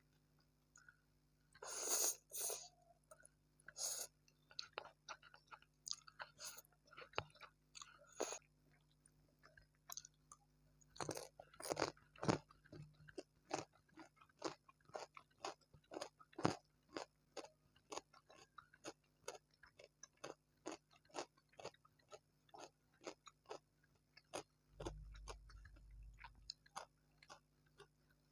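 A person chewing and biting food close to the microphone, with crisp crunchy bites. From about halfway through, the chewing settles into a steady rhythm of about two chews a second.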